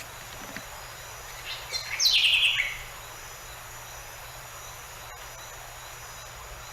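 Green-rumped parrotlet giving a short burst of harsh chattering calls about two seconds in, falling in pitch, over a steady, faint, high-pitched background drone.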